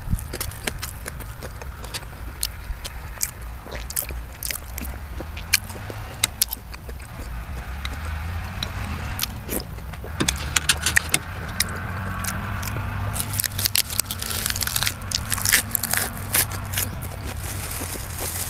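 Close-miked eating sounds: chewing with many sharp wet clicks, and a denser run of crisp crackles when a fresh lettuce leaf is handled, a little past the middle. A steady low rumble runs underneath.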